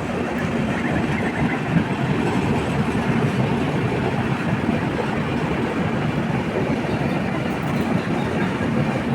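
Indian Railways train running: a steady, even rumble of wheels on the track.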